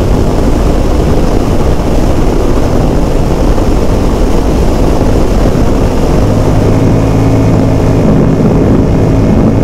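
Royal Enfield Himalayan 450's single-cylinder engine running steadily at highway speed, with a constant rush of wind noise; the engine's low hum grows stronger about six seconds in.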